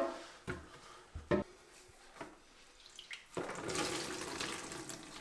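A few short knocks, then from about three and a half seconds in, water splashing and trickling into a plastic bucket as a sponge soaked with the last water from the toilet tank is wrung out.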